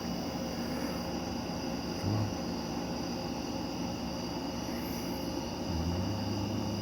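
A chorus of crickets singing steadily in several high, unbroken pitches. A low hum comes in briefly about two seconds in and again about six seconds in.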